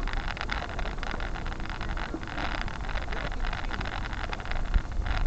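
Wind rumble and movement noise on a moving camera's microphone, with constant small crackles and one sharp knock near the end.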